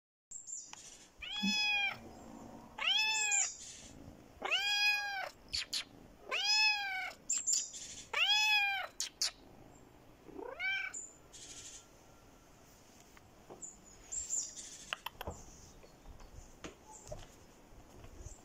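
A kitten meowing repeatedly: six meows that rise and fall in pitch, about two seconds apart, the last one shorter, followed by a few faint clicks and scuffs.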